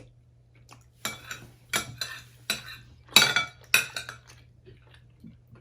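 Spoons clinking and scraping against bowls of rice porridge while eating: a run of sharp clinks between about one and four seconds in, the loudest a little past three seconds.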